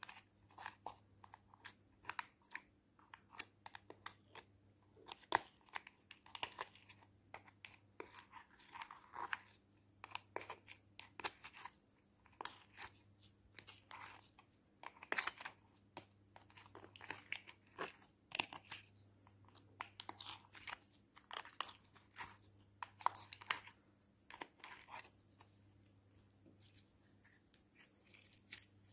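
Hands squeezing, pressing and kneading soft jelly slime, giving an uneven stream of sticky crackles and pops, with the crinkle of a thin plastic tray as slime is pressed out of it. A faint steady hum lies underneath.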